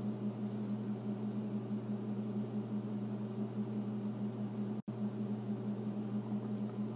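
Steady low electrical hum with a faint hiss underneath, cutting out for an instant just under five seconds in.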